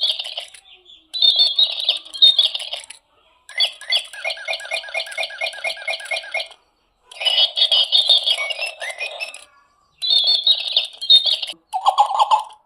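Birds chattering and calling in repeated bursts a second or two long, with short gaps between them. In the middle comes a run of evenly repeated notes, about four a second.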